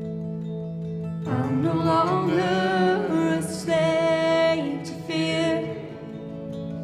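Live band music with guitar: sustained chords, with a brighter melody line coming in about a second in and carrying over them for a few seconds.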